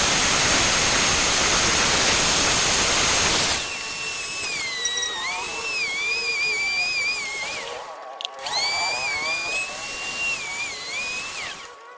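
Power tool at work on metal parts. A loud, even rushing noise for about the first three and a half seconds gives way to a motor whine that wavers in pitch as the load changes. The whine stops briefly about eight seconds in, restarts, and cuts off near the end.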